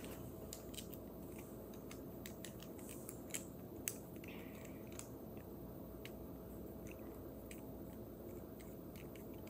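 Faint scattered clicks and light scraping as plastic bolts are screwed by hand into the wooden pieces of a craft-kit crane, with two sharper clicks about three and a half and four seconds in, over a low steady room hum.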